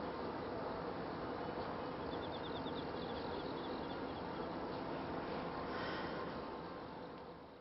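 Steady outdoor background noise with faint high chirping, including a quick run of chirps about two seconds in; the sound fades out near the end.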